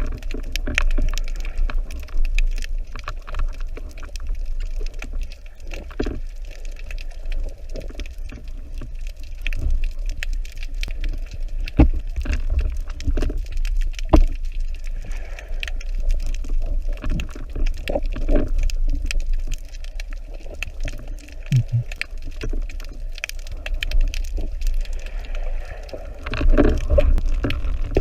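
Underwater water noise picked up by a camera in its housing: a steady low rumble of moving water with many small clicks and crackles scattered through it.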